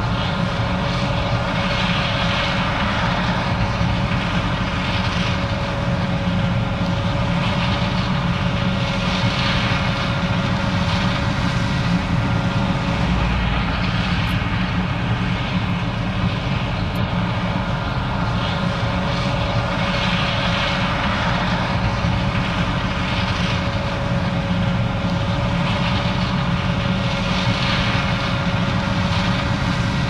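John Deere 9550 combine running steadily while harvesting corn: a low diesel engine drone with a steady higher hum over it, and a hiss that swells and fades every two to three seconds.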